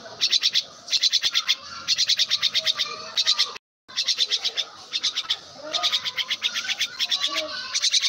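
Jungle myna calling: rapid trains of short, high notes, about ten a second, in bouts of a second or so. A brief full silence falls about halfway through.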